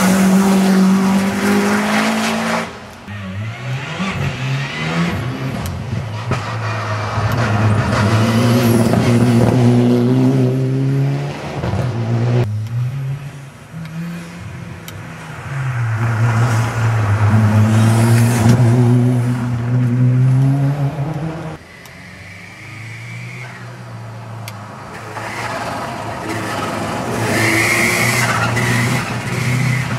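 Several rally cars, including Subaru Imprezas with their turbocharged flat-four engines, driven hard past one after another, engines revving up and dropping through gear changes. The engine note breaks off sharply three times as one car gives way to the next.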